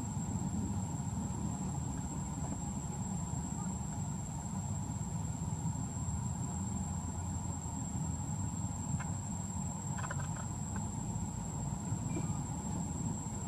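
Steady high-pitched insect drone over a low background rumble, with a few faint clicks about nine and ten seconds in.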